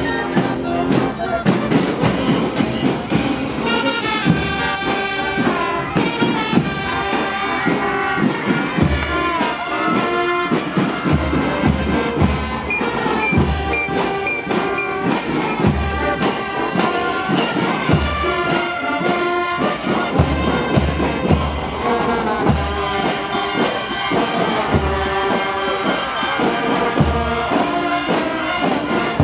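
School marching band playing: trumpets, trombones and sousaphones carry the tune over bass drum, snare drums and cymbals keeping a steady beat.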